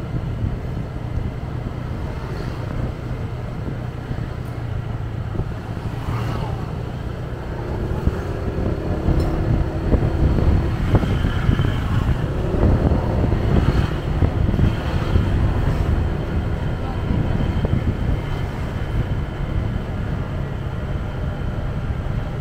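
A motorcycle riding along a city street: its engine running steadily under wind buffeting the microphone, with surrounding traffic. The sound grows louder for several seconds from about eight seconds in.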